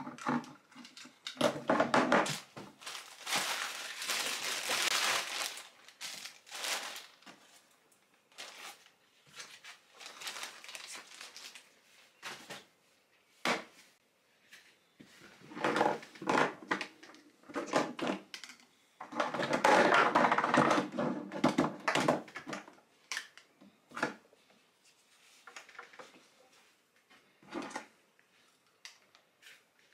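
Clear plastic packaging crinkling and rustling in bursts as breast-pump parts are unpacked, with light clicks and knocks of the plastic power adapter, tubing and bottle parts being handled and set down.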